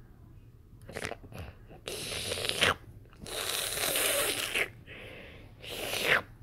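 Crunching, rustling noises in four bursts, the longest lasting over a second.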